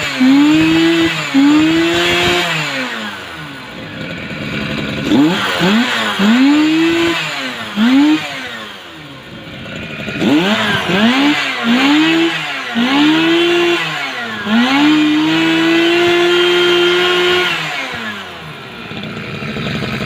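Robin NBT415 brush cutter's small two-stroke engine, with its stock muffler fitted, revved in quick throttle blips that each rise and fall in pitch, in three bursts. It is then held at high revs for about three seconds and drops back toward idle near the end.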